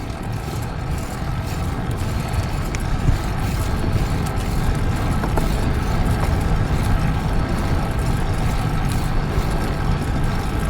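Steady wind rumble buffeting the microphone over road and tyre noise, as from riding a fixed-gear road bike at speed.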